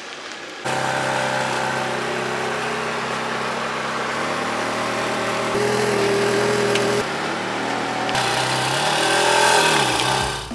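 Ferrari F430 Scuderia's V8 engine running at low revs, its tone changing abruptly a few times, with the revs rising and falling near the end.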